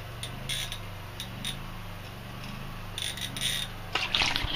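Spinning fishing reel being cranked as a fish is brought up through the ice hole, giving scattered light clicks and ticks over a steady low hum.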